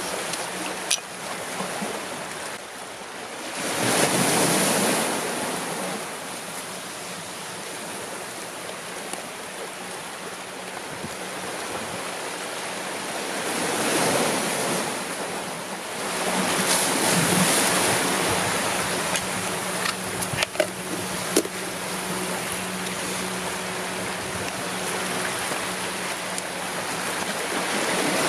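Small sea waves washing against shoreline rocks, swelling and easing a few times, with a few short clicks.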